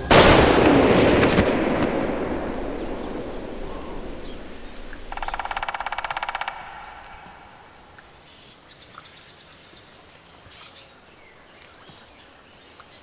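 A single gunshot cracks out and echoes away over several seconds, with a second sharp crack about a second in. About five seconds in comes a short, rapid rattle lasting about a second and a half, then faint bird chirps.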